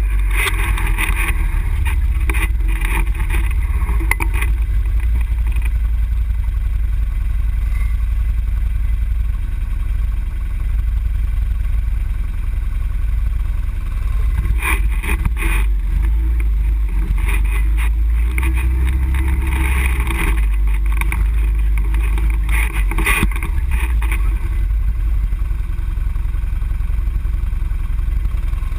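ATV engine running while riding a dirt trail, heard through a camera mounted on the machine, with a heavy low rumble and a few sharp knocks and clatters from bumps along the way.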